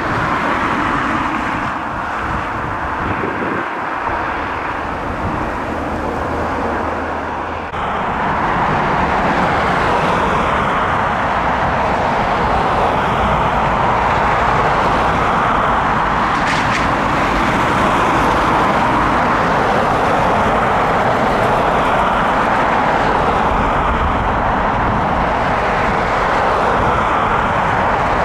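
Jet engines of a Ryanair Boeing 737 taxiing, a steady rushing hum. It cuts in abruptly about eight seconds in, after a quieter stretch of rumbling airport engine noise.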